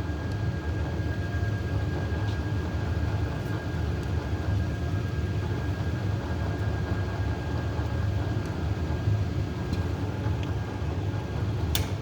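Machine spindle motor running steadily with a low hum and a faint whine, while a chamfer tool cuts the edge of a freshly drilled bolt hole in a cast-iron 350 Chevy block; a click sounds near the end.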